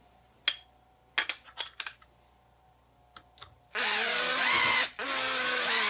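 Makita 18 V cordless drill boring a tap-drill hole in a metal bracket. A few light metallic clinks come first, then the drill starts about four seconds in, stops briefly a second later, and runs again at a slightly lower pitch under load.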